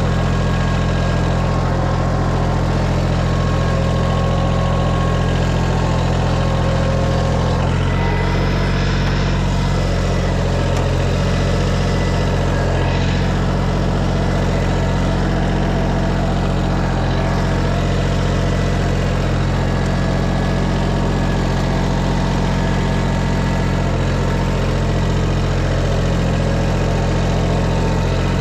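A motor engine running steadily and loudly, its note shifting slightly about eight seconds in.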